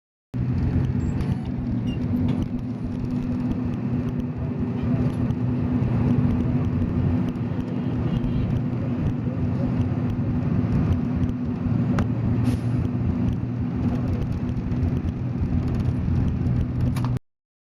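An engine's exhaust running steadily at an even pitch, with a deep low drone. There is a single sharp click about twelve seconds in.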